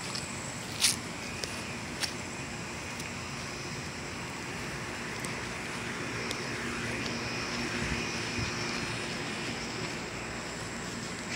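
Outdoor ambience with a steady distant engine drone that swells a little in the middle, and a few sharp clicks, the loudest about a second in.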